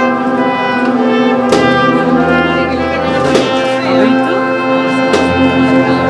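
Spanish processional agrupación musical, a band of trumpets, cornets, trombones and percussion, playing a march with held brass chords. Sharp percussion strikes mark the beat about every two seconds.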